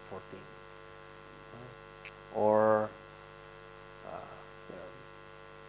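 Steady electrical mains hum on the recording's audio line, with one short drawn-out vocal 'uh' from the speaker about halfway through.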